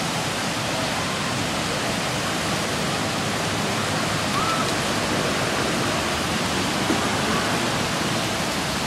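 Water gushing through the open sluices of a canal lock gate and churning into the lock chamber as it fills: a steady, loud rushing.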